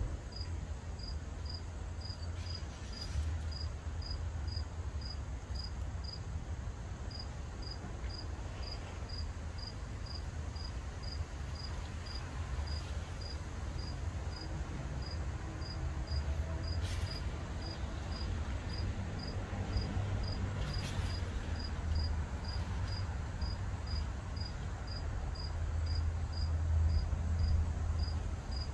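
A cricket chirping steadily, about three short high chirps a second, over a steady low rumble.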